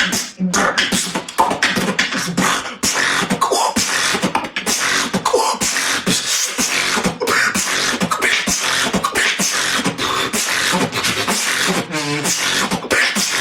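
Human beatboxing: a fast, dense freestyle of mouth-made drum sounds (kick, snare and hi-hat imitations) layered with vocal bass and effects, with a warbling pitched vocal effect about 12 seconds in.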